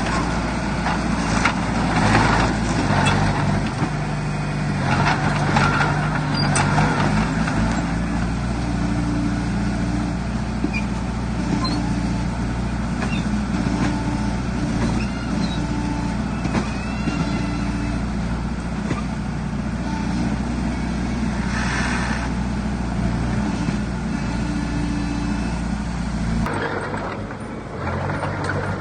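Heavy diesel earthmoving machinery running steadily, the engine note shifting up and down under load, with bursts of hissing noise. The low engine sound drops away abruptly near the end.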